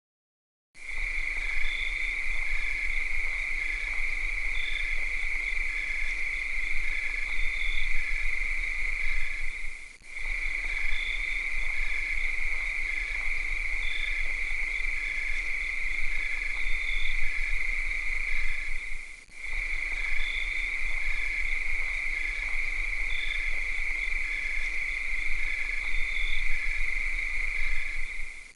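Cicadas droning in a continuous high buzz, with a fainter regularly repeating chirp beneath it. It starts about a second in and drops out briefly twice, about nine seconds apart.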